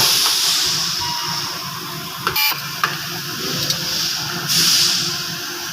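Compressed air hissing in two bursts, about a second each, one at the start and one about four and a half seconds in, with a few short clicks between, as air is worked into or let out of a tyre.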